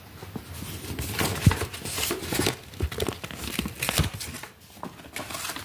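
Paper and plastic packaging crinkling as it is handled, in a run of irregular rustles and crackles.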